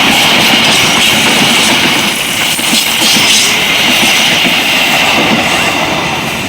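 Diesel-hauled passenger train passing close by: a steady loud rolling of wheels on the rails with a high, hissing rail ring, easing off slightly near the end.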